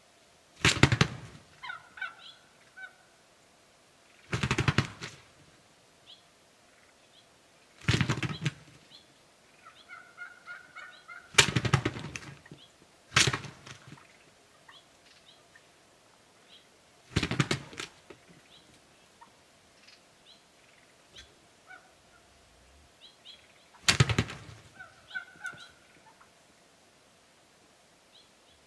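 Gould's wild turkey toms gobbling, seven loud rattling gobbles a few seconds apart, with fainter short calls in between.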